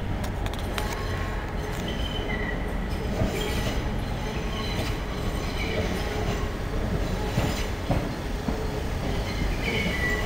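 First Capital Connect Class 313 electric multiple unit rolling slowly over pointwork, its wheels squealing in short high tones that come and go, with scattered clicks as the wheels cross rail joints, over a steady rumble.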